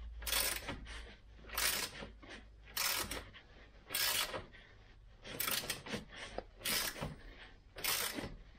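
Socket ratchet clicking in short bursts, about one a second, as it drives a 10 mm screw into the plastic underbody cover with repeated hand strokes.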